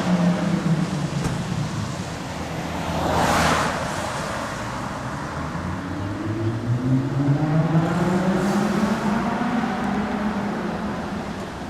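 Lamborghini Huracán's V10 engine and exhaust running, its revs climbing about halfway through and then holding steady. A brief rushing swell comes about three seconds in.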